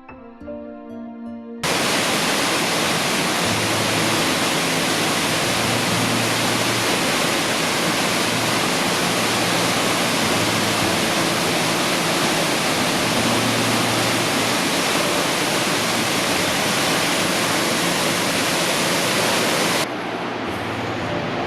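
Soft music breaks off about a second and a half in, replaced by the loud, steady rush of a waterfall. Near the end the rush drops to a lower, duller level.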